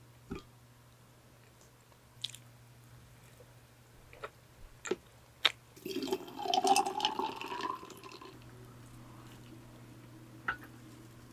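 Milk poured from a bottle into a glass jar for about two seconds, the pitch rising as the jar fills. A few sharp taps and clinks of glassware on the table come before it, and one comes near the end. A low electric-fan hum runs underneath throughout.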